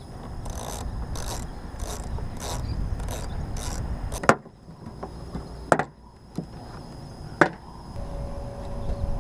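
A ratcheting Torx driver backing out the screws of a plastic inner fender liner: six rasping ratchet strokes about two-thirds of a second apart, then a few sharp clicks.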